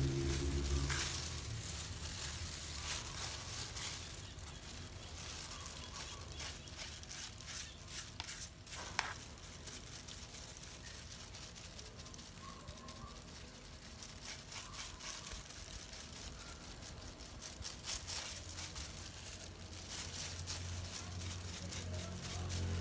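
Disposable plastic gloves crinkling and a small brush dabbing and stroking black dye into goat hair: soft irregular rustles and small clicks, with one sharper click about nine seconds in.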